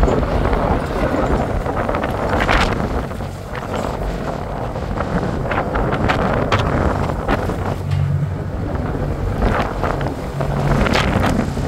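Wind buffeting the microphone over a low, steady machinery rumble, with a few sharp knocks.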